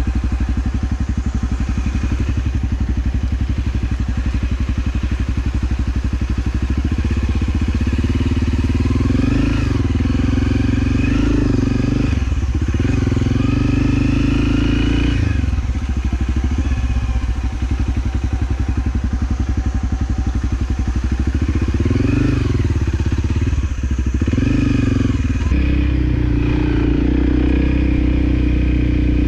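Motorcycle engine running continuously while riding an off-road trail, its revs rising and falling several times with throttle changes and gear shifts.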